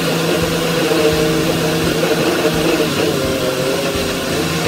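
Electric countertop blender running at steady speed, blending an avocado shake, with a constant motor hum and a slightly wavering whine.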